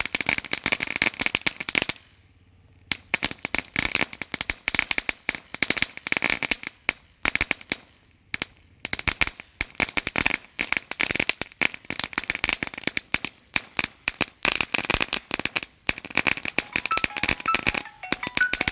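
Firecrackers going off in dense, rapid crackling bursts of sharp pops, with brief pauses between bursts.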